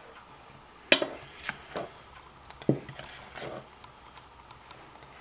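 A metal measuring cup knocking and scraping against a stainless steel mixing bowl as flour is tipped in: a sharp knock about a second in, then several lighter clinks and scrapes over the next two and a half seconds.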